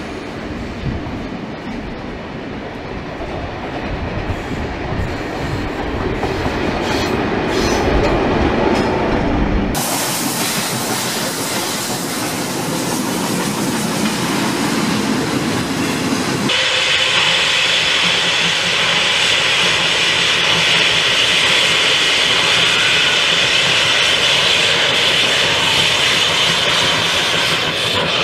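Steam-hauled trains passing: first a heavy low rumble of a working locomotive and its train, then, after an abrupt change about ten seconds in, tank wagons rolling by with wheel clatter. From about sixteen seconds a steady hiss sits over the running train.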